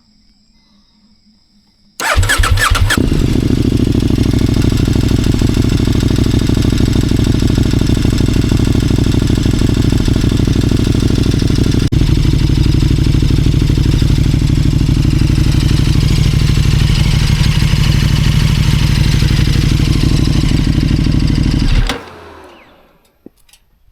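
KTM 1290 Super Duke R's V-twin on its standard exhaust, cranked and started about two seconds in. It idles steadily, without revving, and is switched off near the end.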